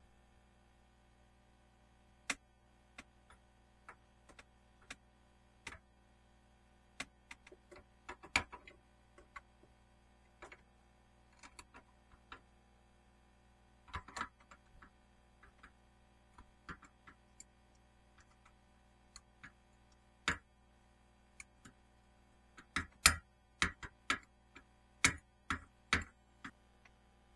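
Irregular clicks and light knocks of hand tools and parts being handled, scattered singly and coming in quicker clusters near the end.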